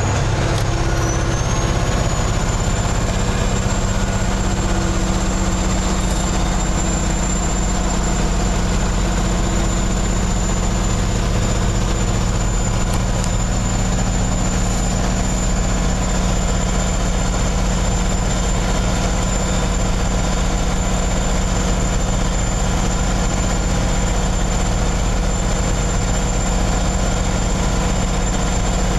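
Kenworth semi truck's diesel engine running steadily, heard from inside the cab, with a high thin whine that climbs in pitch over the first couple of seconds and then holds.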